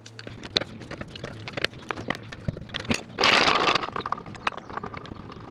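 Irregular metallic clicks and knocks from wheel-changing tools and a trolley jack, with a short burst of noise about three seconds in.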